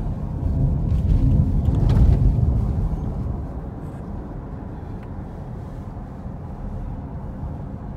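Low road and engine rumble of a moving car, heard from inside the cabin. It swells over the first two seconds or so, then settles lower and steady.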